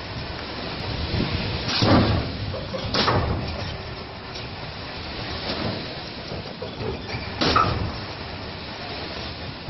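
Steady rumble broken by three louder clunks, about two, three and seven and a half seconds in.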